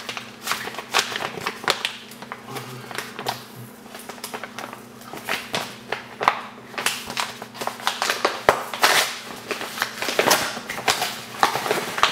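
Mailing package being handled and unwrapped: irregular crinkling and rustling of plastic and paper packaging, with a faint steady hum underneath.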